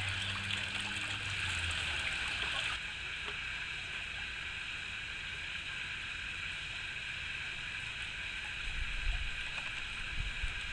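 Steady outdoor background hiss, with a low hum in the first two seconds and a few soft low thumps near the end.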